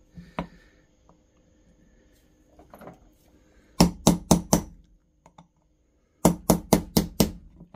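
Hammer tapping a steel punch to drive the firing pin retainer pin out of a Savage 1921 shotgun's bolt. It comes in two quick runs of sharp metallic taps, four about four seconds in and about six more near the end.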